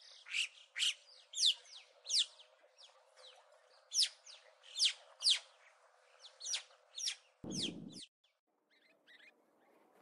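Alpine choughs calling from a flock in flight: about a dozen high, whistled calls, each sliding steeply downward, some overlapping, that stop about eight seconds in. A brief low rumble comes just before they stop.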